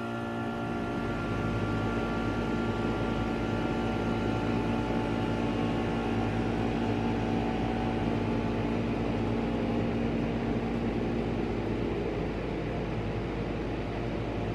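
1989 Carrier Tech2000 air conditioner running just after start-up: a steady hum and whir with several steady tones. A deeper low rumble joins about a second in, and the tones fade away near the end.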